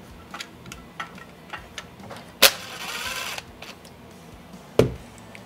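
Cordless impact driver running for about a second, starting with a sharp click about two and a half seconds in, as it drives the standoff bolt of the exhaust-side cam chain guide into a Kawasaki 12F engine. Light clicks of handling around it and a single knock near the end.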